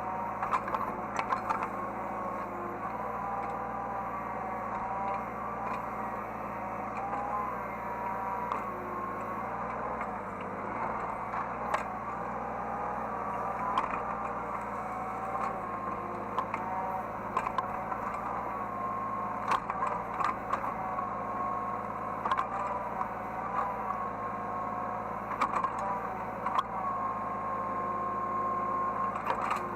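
Hydraulic excavator running, heard from the operator's cab: a steady engine hum with a whine that rises and falls in pitch, and scattered clicks and clanks.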